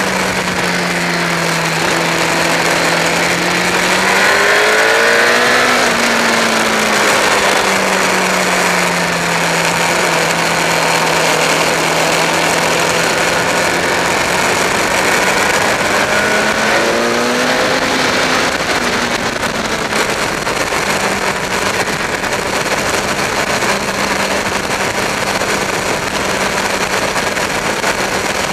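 Sport motorcycle engine at speed on a race track, heard from an onboard camera under heavy wind rush. The engine note climbs and falls back twice, about four and sixteen seconds in, as the bike accelerates.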